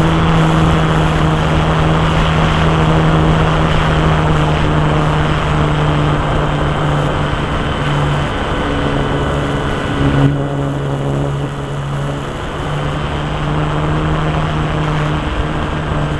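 Radio-controlled model airplane's engine and propeller running steadily, the engine note wavering slightly in pitch over a broad rushing hiss. About ten seconds in the hiss drops off with a brief jump in loudness, while the engine note carries on.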